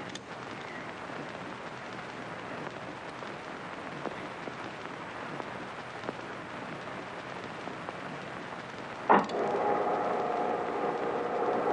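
Steady crackle and hiss of an old film soundtrack. About nine seconds in, a sharp click as a switch is thrown, then a loud steady electrical hum of several tones: the electric chair's current switched on.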